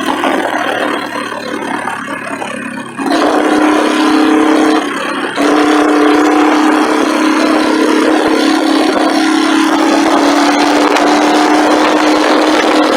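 Motorcycle engine and wind noise while riding, picked up by a phone on the handlebar mount. The first three seconds are quieter, then a loud steady engine note sets in, broken briefly about five seconds in.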